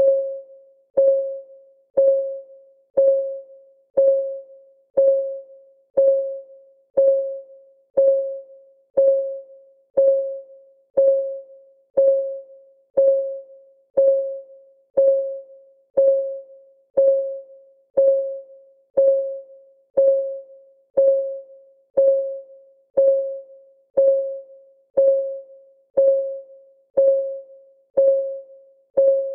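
Countdown timer's clock ticking sound: one short pitched tick every second, each fading away quickly, in an even unbroken rhythm.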